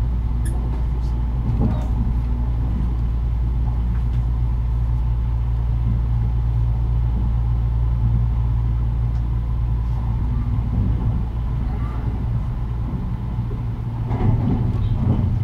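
Running noise of a Kintetsu 80000 series 'Hinotori' electric limited express train, heard inside the car: a steady low rumble of wheels on rail and the moving car body.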